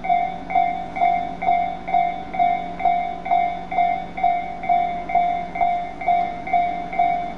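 Japanese railway level-crossing warning bell on the Tobu line ringing its repeated ding-ding, a bit over two strikes a second, each tone fading before the next: the crossing is warning of an approaching train. This is the bell tone most common on Tobu lines.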